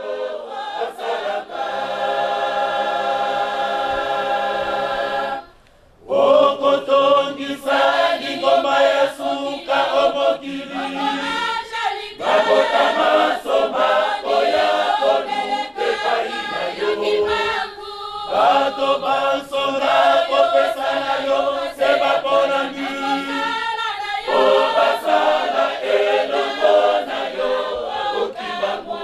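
Large mixed church choir of women and men singing in parts without instruments. They hold one long chord for about five seconds, break off briefly, then sing a phrased, rhythmic melody with short pauses between lines.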